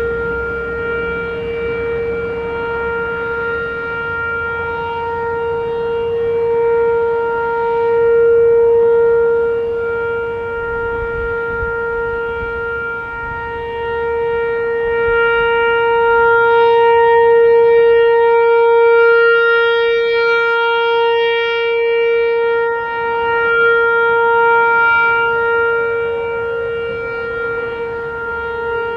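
Whelen Vortex R4 rotating electronic warning siren sounding the alert signal: one steady, unbroken tone held throughout, swelling and easing slowly in loudness a few times, loudest about a third of the way in and again past the middle.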